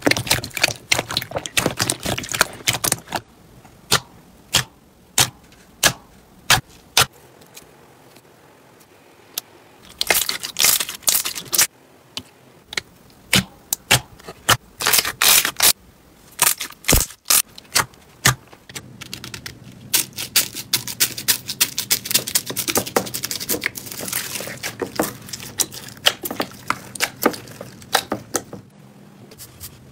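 Slime being squeezed and pressed by hand, sending out sharp clicks and pops from trapped air. The clicks come singly and spaced apart for several seconds, then in quick runs, and build into a near-continuous crackle in the last third.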